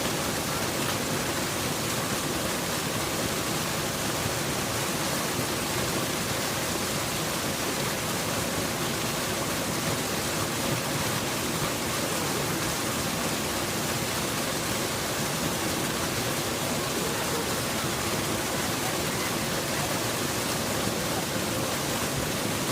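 Waterfall: falling water rushing steadily, an even, unbroken noise across low and high pitches.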